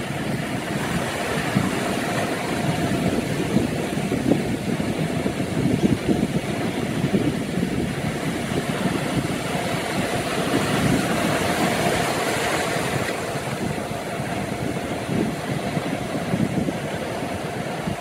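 Small Atlantic waves breaking in shallow water and washing up the beach: a steady rush of surf, with a fuller wash about ten seconds in.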